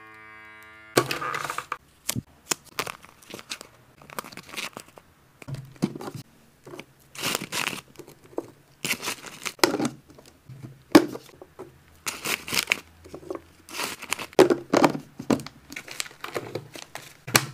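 Snack packaging being crinkled and torn in irregular bursts, with pauses between, as pet-snack packets are handled and opened.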